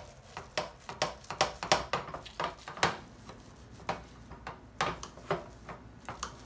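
Potato masher pressing down into cooked chickpeas in a metal pot, a short knock on each stroke as it hits the pan bottom, about two to three a second at first, then fewer and further apart.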